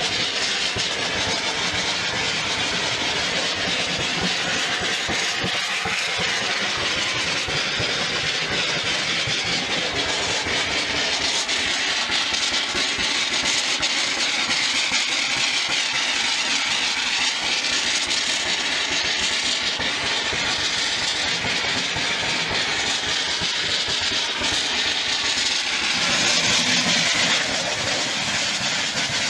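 A 7.5-inch gauge miniature ridable train running, a steady mechanical drone with rail noise that swells a little near the end.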